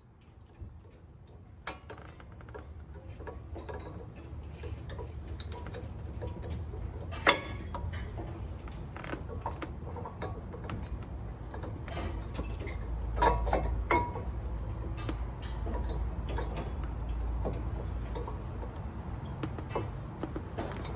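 Scattered metallic clicks and taps as new brake pads are fitted into a caliper bracket. There is a sharp knock about seven seconds in and a few more knocks around thirteen to fourteen seconds, over a low rumble.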